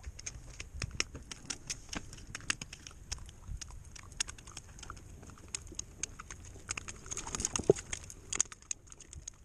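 Irregular light clicks and scuffs of shoes stepping and shifting on granite jetty boulders, coming thicker and louder for a moment near the end.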